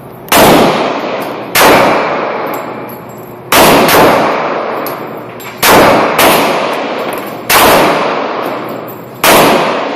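Six shots from a Glock 30S subcompact pistol in .45 ACP, fired at an unhurried pace about one and a half to two seconds apart. Each report is sudden and loud, with a long ringing decay after it.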